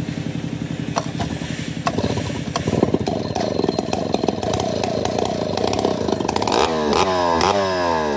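Stihl 070 large two-stroke chainsaw running, first at a steady idle. About two seconds in the engine note picks up, and near the end the throttle is blipped several times, the pitch rising and falling with each rev.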